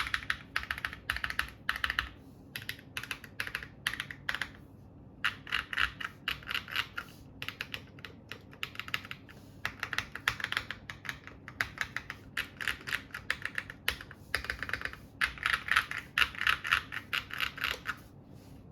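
Typing on a GAS67 mechanical keyboard with lubed Akko Rose Red switches on 55 g springs and OEM-profile keycaps: quick runs of keystrokes, with short pauses in between and the typing stopping just before the end.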